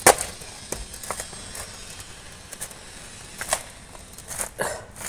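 Metal rod jabbed into a coconut husk with one sharp knock at the start, then scattered clicks and creaks as the rod is worked and the fibrous husk is pried apart.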